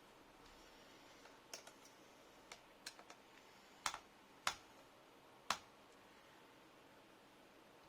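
Small sharp clicks and taps of tools and parts being handled inside a laptop during disassembly, about eight irregular ticks with the loudest three near the middle.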